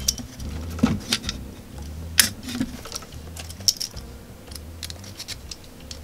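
Scattered sharp clicks and light taps of a metal hobby knife and a plastic blade case being handled as a blade is picked out and fitted into the knife; the sharpest click comes about two seconds in.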